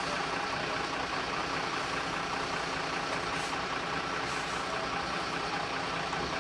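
Mercedes-Benz fire engine's diesel engine idling steadily while it stands parked.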